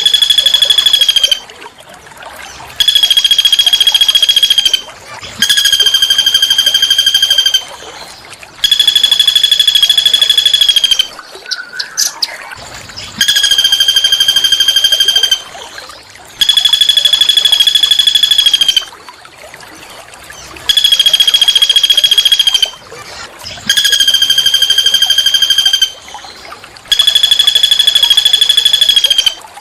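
A small bird's harsh, buzzing trill, each phrase held at one steady pitch for about two seconds and repeated nine times with pauses of about a second.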